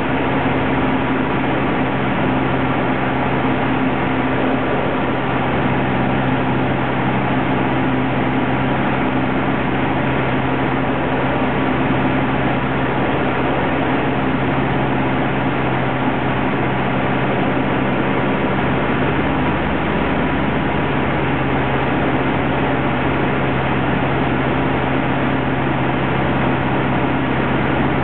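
Cessna 150L's Continental O-200 four-cylinder engine and propeller running at a steady drone, holding one pitch throughout.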